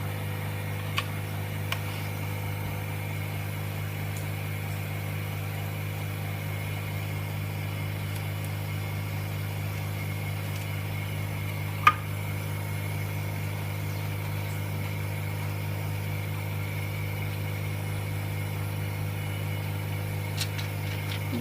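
Steady low electric hum of the LCD refurbishing machine's vacuum pump running. A sharp click sounds just before halfway through, with a couple of faint clicks near the start.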